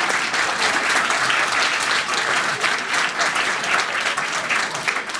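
Theatre audience applauding, a dense steady patter of many hands clapping that dies away at the very end.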